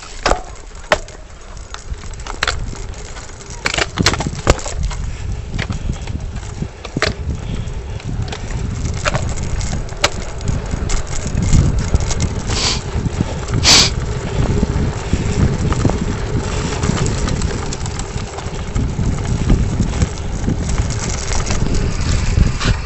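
Low rumbling handling noise on a phone's microphone, with scattered sharp clicks and crunches throughout.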